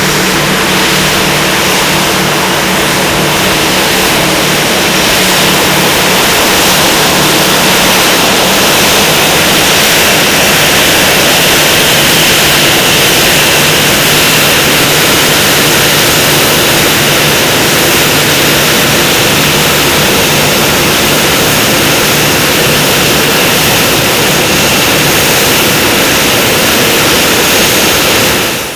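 Boeing 737 turbofan engines running at taxi power: a loud, steady jet roar with a faint high whine. A low hum underneath fades out about ten seconds in.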